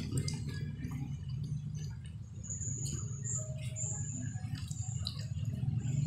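Quiet eating at a table: light clicks and taps of bowls and spoon over a steady low hum, with a few high, thin chirps about halfway through.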